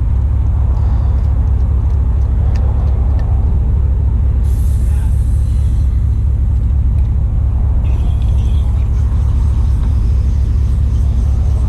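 Steady low rumble, with a short hiss about four and a half seconds in and a fainter one a few seconds later.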